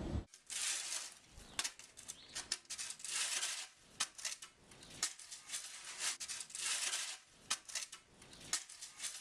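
Footsteps crunching through deep snow: slow, uneven steps, each a short crackly crunch with small clicks.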